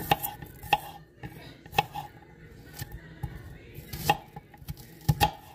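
Knife chopping garlic and onion on a cutting board: a series of irregular, sharp knocks.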